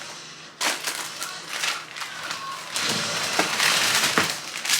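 Grocery bags and packaging rustling and crinkling as items are handled and pulled out, with a brief knock about half a second in and the loudest crinkling about three seconds in.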